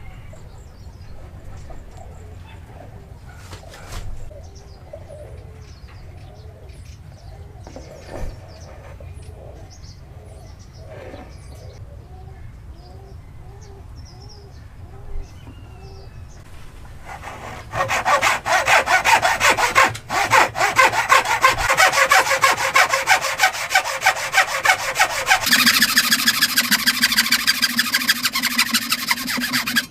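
Saw cutting wood in rapid back-and-forth strokes, loud from a little past halfway after fainter, slower strokes before. Near the end the sound turns brighter, with a steady hum underneath.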